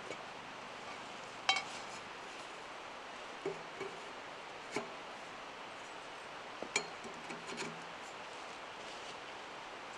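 Metal stovepipe sections clinking and knocking together as they are handled and fitted onto a wood stove's chimney: a handful of sharp clinks, the loudest about one and a half seconds in with a brief ring, over a steady background hiss.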